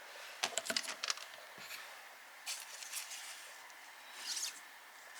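Small handling sounds of hand model-making: a quick run of sharp clicks and taps about half a second in, then two short scraping, rustling noises, over a faint steady hum.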